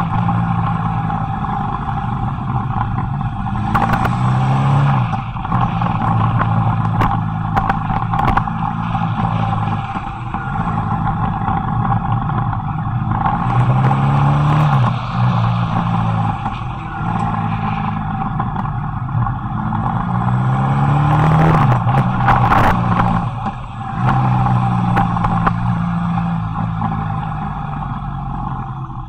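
Motorcycle engine under way downhill, its pitch falling off between bends and rising again in revs about three or four times, with wind and road noise rushing over the microphone.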